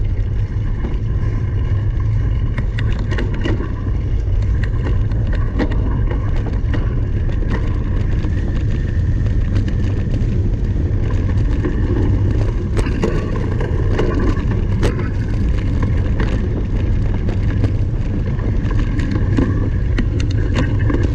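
A cyclocross bike ridden fast over rough ground: a steady low rumble with frequent sharp rattles and clicks from the bike jolting over the course.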